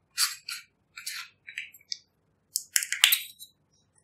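A run of short, crisp rustles and clicks of a small plastic eyeshadow compact being picked up and handled, with a louder cluster of clicks about three seconds in.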